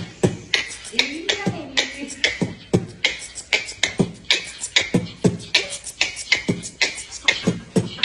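Music with a fast, punchy beat of deep kicks and sharp snappy hits, several a second, and a short gliding vocal line about a second in.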